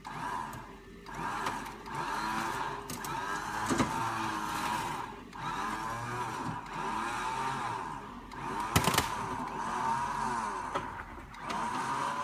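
Electric winch on a 2014 Jeep Wrangler JK Rubicon whining as it reels in its line to pull the stuck Jeep out. It runs in stretches of one to three seconds with brief pauses between them, and its pitch wavers under load. Two sharp knocks come about four and nine seconds in.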